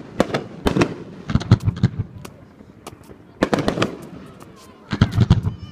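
Fireworks firecrackers going off in rapid strings of sharp bangs, in four bursts separated by short pauses.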